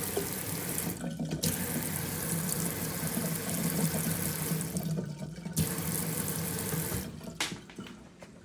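Water running hard at full flow, with a steady hiss. It breaks off briefly twice and stops about seven seconds in.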